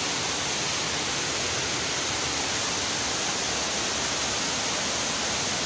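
Steady, even rush of a jungle waterfall and its stream.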